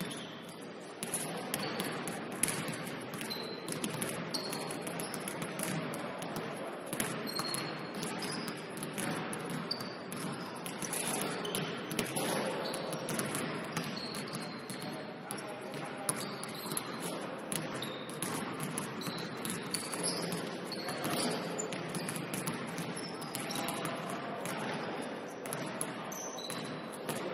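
Basketball game play: the ball bouncing repeatedly on the court floor, with many short high sneaker squeaks scattered through and players' voices in the background.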